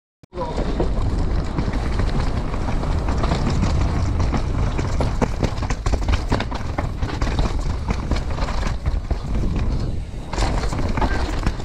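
Commencal Supreme downhill mountain bike ridden fast over rocks and roots, heard from an action camera on the rider: tyres crunching and the bike rattling and clattering with many sharp knocks over a steady low rumble. It begins a fraction of a second in, after a brief silence.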